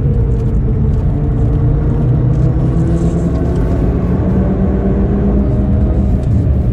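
Audi TT RS turbocharged five-cylinder engine from inside the cabin, pulling in fourth gear under power, its pitch rising steadily as the revs climb from about 3,900 to 4,800 rpm.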